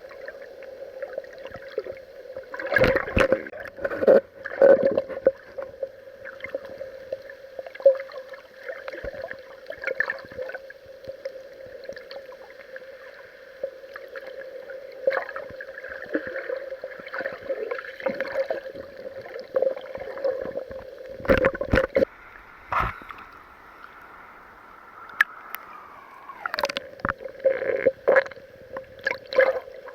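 Water sloshing and gurgling around a waterproof action-camera housing at the water's surface, with a steady hum underneath and repeated knocks against the housing. The hum drops out for a few seconds past the middle and returns after a falling tone.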